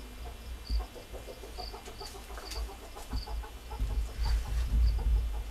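Chickens clucking, a steady run of short low clucks, under a low rumble that swells from about four seconds in.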